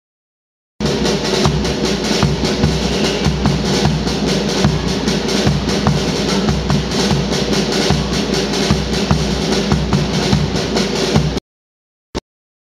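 Marching music with a steady drum beat of snare and bass drum over sustained instrumental notes. It starts abruptly about a second in and cuts off suddenly near the end, leaving silence broken by one short click.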